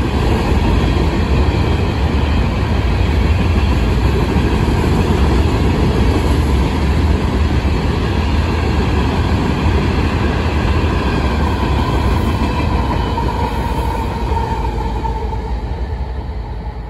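Freight cars of a Union Pacific rock train rolling past with a steady, heavy rumble of wheels on rail. A thin, high wheel squeal comes in toward the end as the train eases off.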